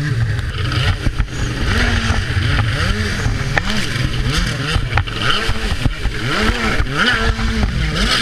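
Freeride jet ski engine revving up and down over and over, its pitch rising and falling every second or so, under a rush of water and wind, with a few sharp knocks.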